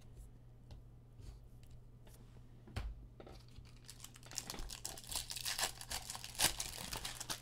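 A single soft knock about three seconds in, then the foil wrapper of a Chrome jumbo baseball card pack crinkling and tearing as it is ripped open by hand.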